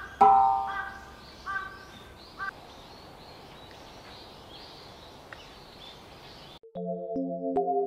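A crow cawing four times in the first two and a half seconds, the first call the loudest, over outdoor ambience with faint high bird chirps. About two-thirds of the way in, the ambience cuts off and soft background music with keyboard notes begins.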